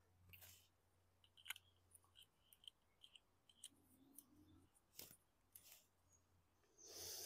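Near silence broken by faint, scattered clicks and light taps of small metal parts and tools being handled as a lawn mower carburetor is reassembled.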